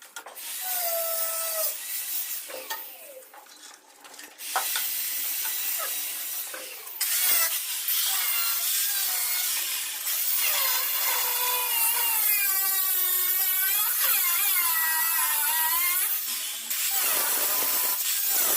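Power tool cutting into stone tile, its whine bending up and down in pitch as the load changes, with a few short pauses between cuts.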